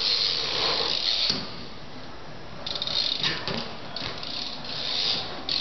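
BMX bike's freewheel hub ticking rapidly as the bike coasts, with tyres rolling on tarmac. It is loudest in the first second and a half, drops back, then returns in the second half.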